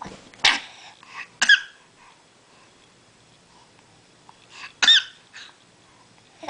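Hiccups: three short, sudden hics, the second and third with a squeaky pitch that rises and falls, the last after a pause of about three seconds.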